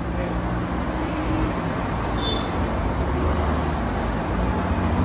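Street traffic: passing vehicles' engines and tyre noise on the road, with a heavier engine growing louder near the end as a box truck drives by.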